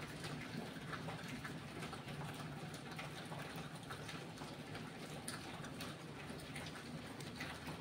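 Small dried prawns crackling and rustling as fingers pick through them on a plate: many faint, irregular ticks over a steady low hum.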